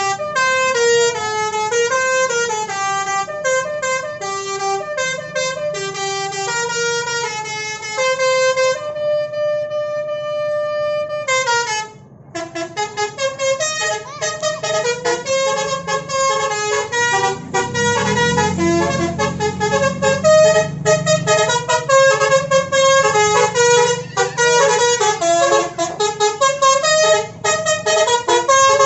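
Basuri telolet multi-tone bus horn playing a tune of quick stepping notes, with one long held note in the middle and a brief break about twelve seconds in, then a faster run of short notes. A low rumble runs underneath for a few seconds past the middle.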